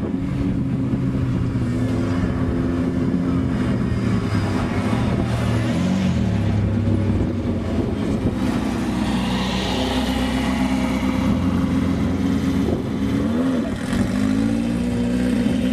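Off-road race vehicle engine running hard and revving, its pitch sliding down and back up about six seconds in and again near thirteen seconds.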